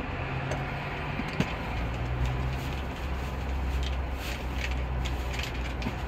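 Steady low mechanical drone, like a running engine or motor, with a sharp click about a second and a half in and a few fainter ticks.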